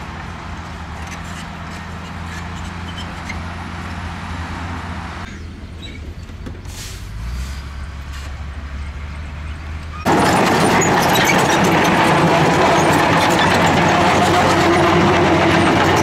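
A loaded dump truck's diesel engine running low and steady, with a brief hiss about halfway through. About two-thirds of the way in the sound jumps suddenly to a much louder, clattering Komatsu D61PX crawler bulldozer, its engine and steel tracks running.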